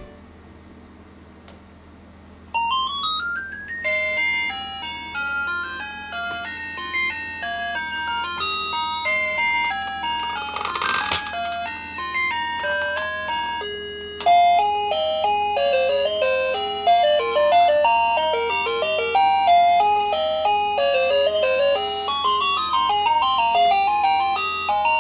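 Music: after a quiet opening, an upward glide about two and a half seconds in leads into a quick melody of short notes, which grows louder a little past halfway.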